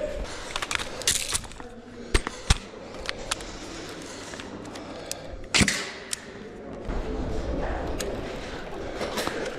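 Scattered single sharp clicks and cracks of airsoft fire around the hall, the loudest a little past halfway, with rustling handling noise between them.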